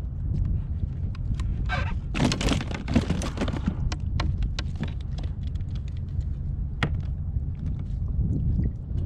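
Knocks and clatter of gear being handled against a plastic fishing kayak: many short sharp knocks, with a louder, busier stretch about two seconds in. Steady wind buffets the microphone underneath.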